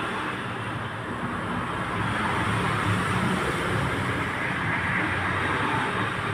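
Steady road traffic noise: a continuous hiss with a low engine hum underneath.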